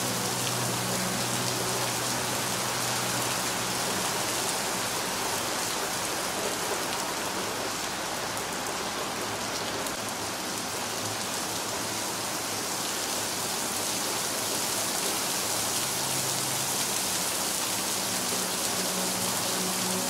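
Steady rain, a dense, even hiss of falling drops. Underneath it a soft, held low tone of ambient music fades almost away in the middle and returns near the end.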